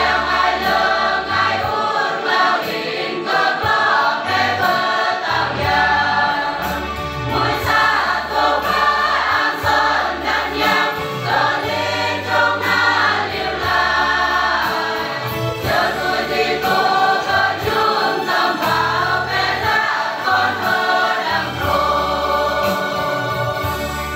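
Mixed choir of men and women singing a hymn together, over a steady accompaniment of low bass notes that change every second or two.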